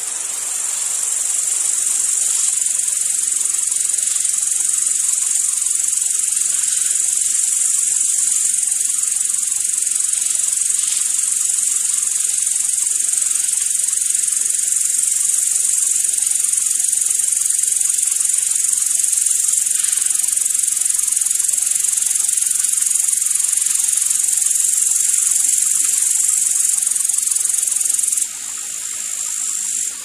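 Insects chirring in the grass: a loud, steady, high-pitched buzz that carries on unbroken, then drops sharply in level near the end.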